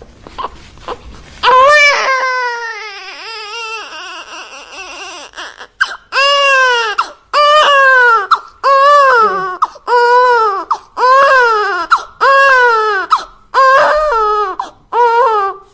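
A baby crying: after a quiet start, one long wavering wail begins about a second and a half in, followed by a steady run of cries about one a second, each rising then falling in pitch.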